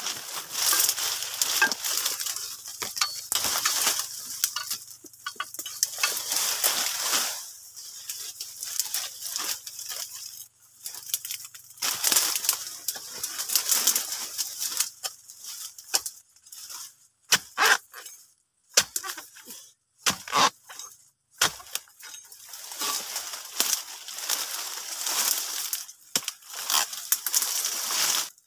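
Dry oil palm fronds and leaf litter crackling and rustling in irregular bursts with brief pauses, as someone pushes and steps through them.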